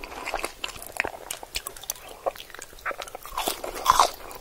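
A man biting and chewing French fries close to the microphones, mukbang-style: irregular mouth clicks and chewing noises, loudest about four seconds in.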